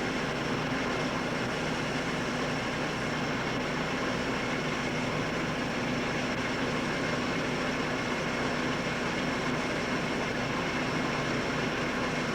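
Steady drone of heavy machinery running at a constant pitch, a hiss with a few held tones over it.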